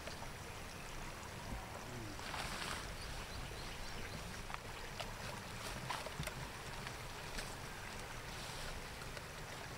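Steady low wind rumble on the microphone, with brief rustles of leaves and grass about two and a half seconds in and again near the end as hands search through the plants for grasshoppers.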